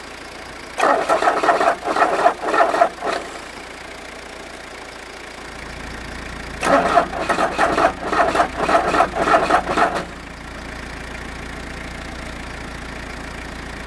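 Peugeot 205 1.8 diesel's four-cylinder engine cranked by its starter for a cold start after glow-plug preheating, in two attempts of about two and three seconds, each turning over in uneven pulses. It does not catch.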